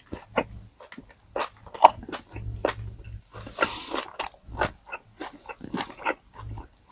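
Close-up crunching and chewing of crispy pata, a deep-fried pork knuckle with crackling skin, in many short, irregular crunches.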